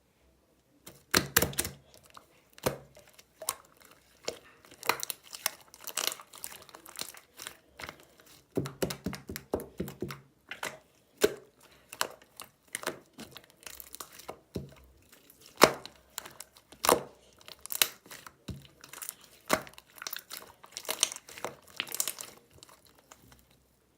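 Pink marbled clear slime being squeezed, stretched and poked by hand, giving irregular runs of sticky pops and crackles as air pockets burst, with short pauses between handfuls.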